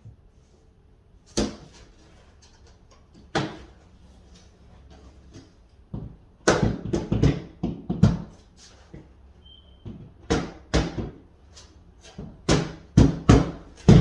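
Flooring planks knocking and clacking on the floor as they are set and pressed into place. Two single knocks come early, then clusters of quick knocks from about halfway on.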